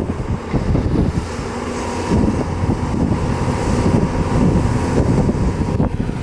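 Hyundai excavator's diesel engine running under load while digging in mud, with irregular low knocks and clunks from the working machine.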